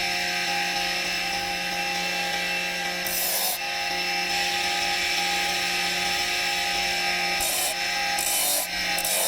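Electric power tool running steadily while grinding and cutting marble. It gives a constant motor whine, with short bursts of harsher hiss as the tool bites into the stone, once about three seconds in and several times near the end.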